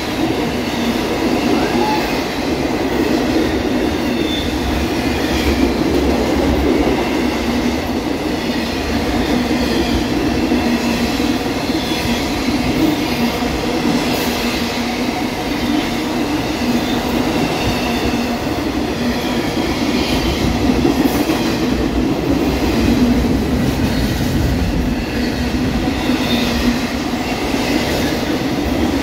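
Intermodal freight train's cars rolling past close by: a steady rumble and clatter of steel wheels on the rails, with no letup.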